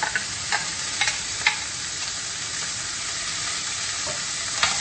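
Freshly added chopped mint with garlic, curry leaves and green chillies sizzling in hot oil in a stainless steel pan: a steady frying hiss as the leaves give up their water. In the first second and a half there are a few light clicks of a spoon against the glass bowl as the mint is scraped in, and another click comes near the end.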